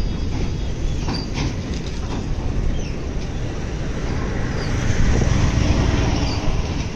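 Passenger train coaches rolling across a steel truss railway bridge: a steady rumble of wheels on the rails with a few sharp clacks about a second in, growing louder near the end.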